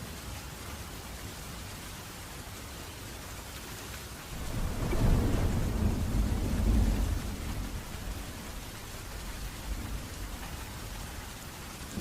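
Steady rainfall with a roll of thunder that starts suddenly about four seconds in, rumbles deep and loud for about three seconds, then fades back under the rain.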